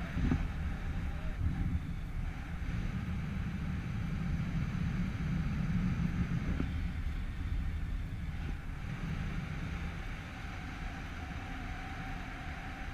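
Wind rushing over the GoPro's microphone during paraglider flight: a steady low rumbling buffet, with a couple of brief louder gusts or bumps in the first two seconds.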